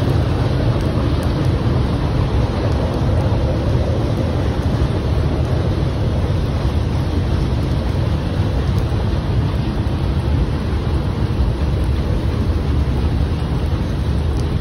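CSX freight train's tank cars rolling past at speed, a steady rumble of wheels on rail, with wind buffeting the microphone.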